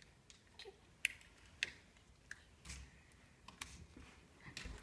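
Light, irregular plastic clicks from the buttons of a handheld infrared remote being pressed and handled, about ten soft clicks with gaps between them.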